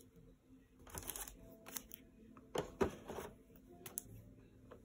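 Game cards handled and flipped through by hand: a few short, faint rustles and light clicks of card stock, the loudest about three seconds in.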